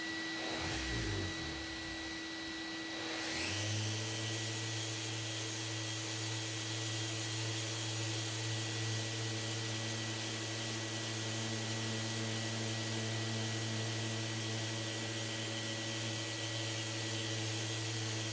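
An electric motor-driven machine spins up about three seconds in, then runs steadily with an even hum.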